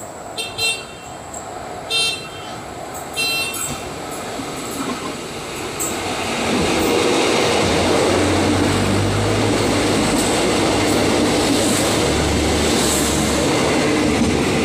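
A diesel-hauled passenger train approaching and then passing close by at speed. Three short horn blasts in the first few seconds, then from about six seconds in a loud, steady rumble and rush as the coaches run past.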